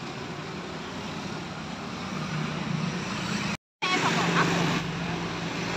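Street traffic noise: passing motorbike and car engines with a steady hum that swells about two to three seconds in. After a short break there are a few light clicks.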